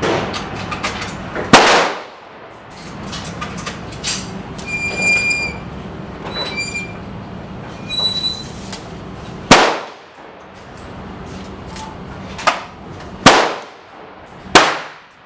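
Gunshots at a shooting range: four loud shots with echoing tails, spread unevenly, with smaller knocks between and a few brief high metallic rings in the middle.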